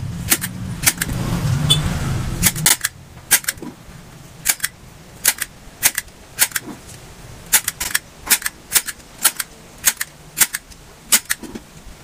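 Hand staple gun firing staples through rubber car-tyre pieces to join them, a sharp metal clack roughly every half second to second, about eighteen in all. A low rumble underneath for the first few seconds cuts off suddenly.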